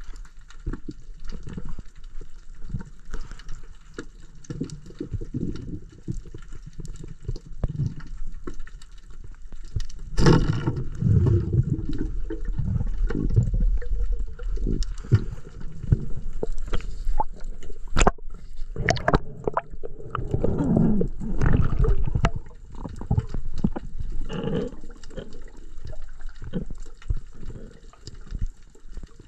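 Underwater sound picked up by a diver's camera: muffled water movement and bubbling with scattered clicks and knocks. A sudden sharp burst about ten seconds in is followed by louder churning for roughly ten seconds.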